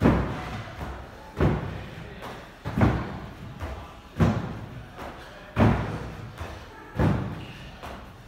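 Feet landing hard on a wooden plyo box during repeated box jumps: six heavy thuds about every second and a half, each ringing briefly, with a softer knock between them as the jumper drops back to the floor.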